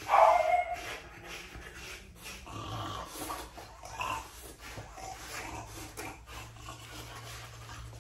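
A French Bulldog gives a short pitched vocal sound lasting under a second, the loudest thing here. After it come quieter scuffs and rubbing as a pumice stone is worked over its short coat.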